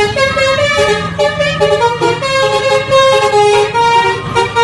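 Loud upbeat dance music: a horn-like lead plays a stepping melody over a steady beat and bass.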